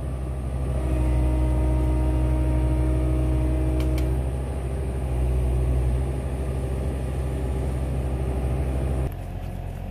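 Engine of the machine hauling the chained locomotive frame, running with a steady low drone and a faint whine for the first few seconds; the drone cuts off abruptly about nine seconds in.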